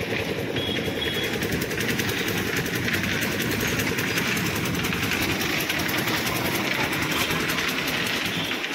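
An engine or motor running steadily with a fast rattle.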